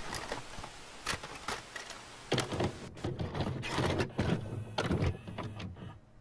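Clicks and clunks of a videocassette recorder's tape mechanism, over a hiss that cuts off about three seconds in.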